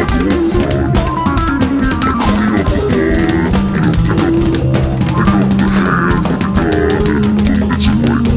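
Background rock music: a drum kit keeping a steady beat under guitar and bass.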